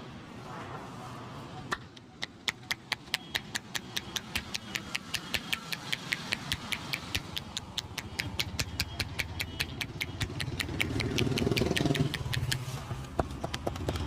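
A rapid, even run of sharp slaps, about five a second, from the barber's hands striking the head in a tapping head massage, starting about two seconds in and stopping shortly before the end. Near the end a low rumble of passing street traffic swells, and it is the loudest thing there.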